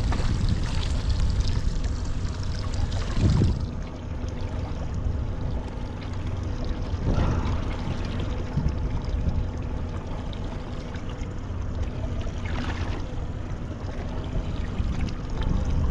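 Steady low rumble of a boat on the water, with water sloshing and splashing; brief louder splashes about three, seven and thirteen seconds in.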